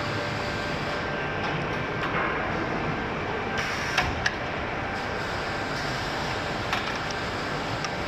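Addison DB20ESR CNC tube bender running with a steady machine hum and a faint steady whine. Two sharp clicks come about four seconds in and another near seven seconds.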